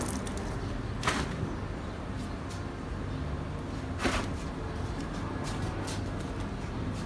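Wet laundry being handled and pegged onto a clothesline: two sharp flaps or snaps of cloth, about a second in and about four seconds in, and a few softer rustles near the end, over a steady low rumble.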